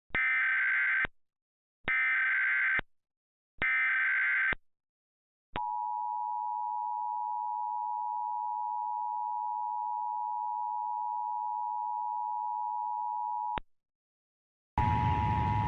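Emergency Alert System tones: three one-second bursts of SAME header data tones with short gaps, then the two-tone EAS attention signal held steady for about eight seconds and cut off sharply. Near the end a hissing noise with a steady tone in it starts.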